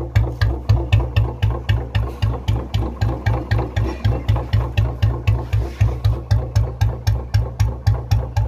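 Royal Enfield Bullet's single-cylinder four-stroke engine idling through its chrome silencer with a slow, even dug-dug thump of about four to five beats a second.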